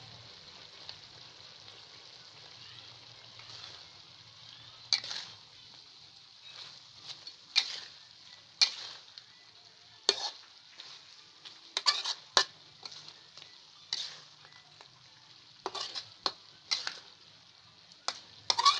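Chicken frying in a metal pan with a faint sizzle, then a metal spatula scraping and knocking against the pan in sharp, irregular strokes from about five seconds in as the chicken and leaves are stirred.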